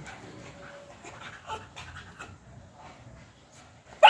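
Soft dog breathing and small scattered clicks, then right at the end a sudden loud bark from the beagle, the first of a run of barks at the pug puppy.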